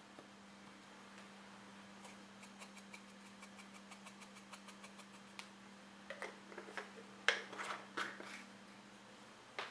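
Faint, rapid light tapping, about four taps a second, as ground Sichuan peppercorn is tapped out of a small container into a glass bowl, followed by a few louder knocks and clicks about two-thirds of the way through. A steady low hum sits underneath.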